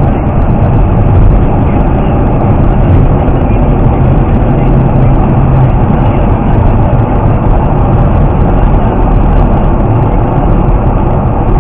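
Steady low rumble of tyre and engine noise heard inside a car's cabin as it cruises along an expressway.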